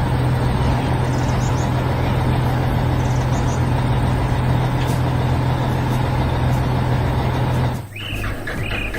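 Heavy construction vehicle engine sound effect running at a steady, unchanging pitch, cutting off abruptly near the end.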